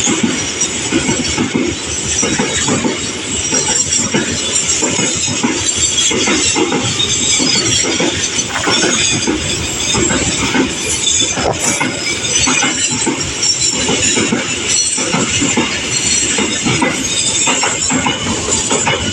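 Train passing close by, its steel wheels clattering over the rail joints in a steady, continuous run of knocks with a hissing, screeching edge high up.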